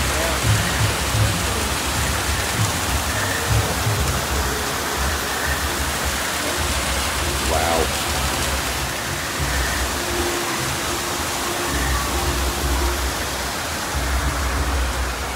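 Steady rush of falling water, like a waterfall, with faint music beneath.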